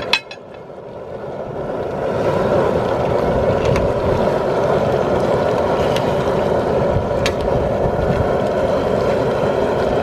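Outdoor propane burner under a large stockpot, burning with a steady rushing noise. The noise drops away just at the start and swells back over about two seconds. A few light clicks of a metal ladle against the pot come as the curry is stirred.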